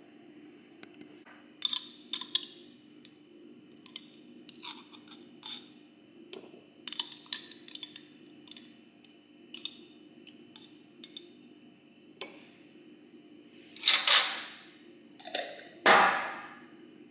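Light clinks and taps of olives and small glass dishes: olives going one by one into a small glass bowl on a wooden tray. Two louder, longer knocks or scrapes come near the end.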